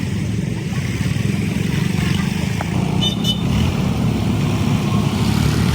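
Tractor diesel engine running steadily under load, a low, rapid chugging. A brief high chirp sounds about three seconds in.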